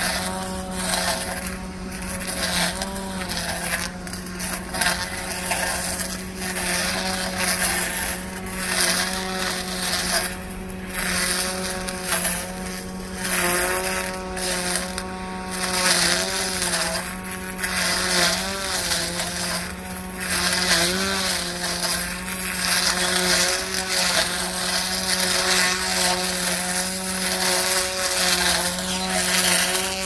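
Electric brush cutter running steadily through dense, tall weeds, its motor hum sagging briefly in pitch again and again as the cutting head bites into the growth, over the swish of cut grass.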